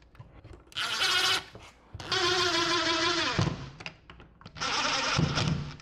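Cordless drill-driver running in three short bursts, the middle one longest, driving the screws that fasten the Tesla Wall Connector's back plate to the wall.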